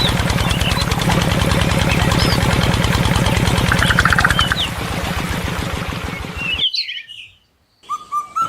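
Small engine of a homemade mini tractor running steadily with a fast, even knock, while birds chirp. The engine sound cuts off suddenly about two-thirds through, followed by a second of near silence and then a short high tone.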